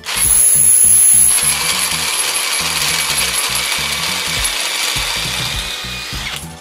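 Cordless drill running steadily with its socket on a car alternator's pulley nut, turning the alternator and its belt drive. It starts suddenly with a high whine that is loudest in the first second, then runs on steadily and stops just before six and a half seconds in.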